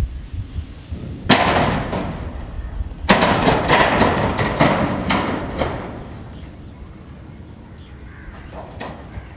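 Corrugated metal sheet roof clattering and rattling under a rhesus macaque: a sudden bang about a second in, then a second bang about three seconds in, followed by a run of rattling strikes that fades out over the next few seconds.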